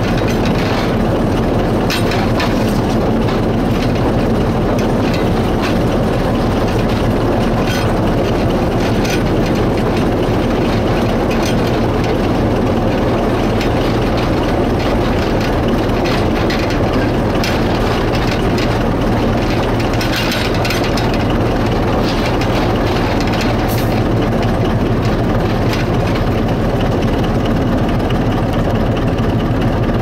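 Forest-railway locomotive No. 132's engine running steadily, heard close up from on top of its bonnet, with a few sharp clicks and knocks scattered through.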